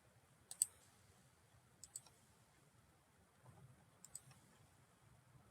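Computer mouse clicking: three pairs of quick, sharp clicks about a second and a half apart, over faint room hiss.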